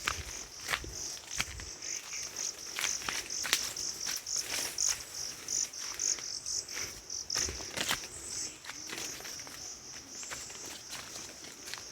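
An insect, cricket-like, chirping in a fast, regular string of high pulses, with irregular sharp crackling clicks over it.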